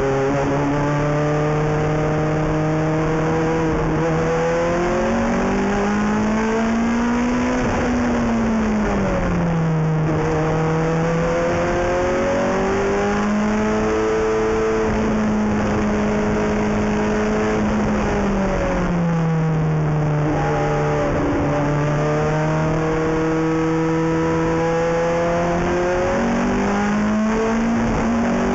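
Ferrari F430 GT race car's V8 engine pulling hard on track. Its pitch climbs, drops sharply at about 8 and 18 seconds in as the car slows, then climbs again.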